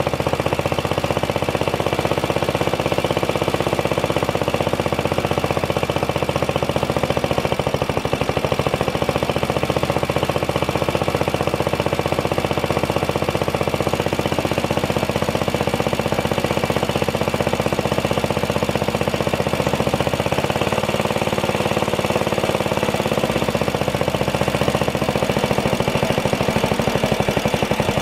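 Old Briggs & Stratton single-cylinder engine on a homemade walk-behind tractor, running steadily with a rapid, even firing beat. Its speed is set by hand on a simple throttle, with no governor.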